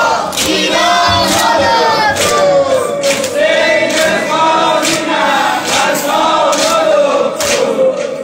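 A group of male mourners chanting a Shiite mourning lament together, with sharp hand strikes of chest-beating and clapping keeping a steady rhythm under the voices.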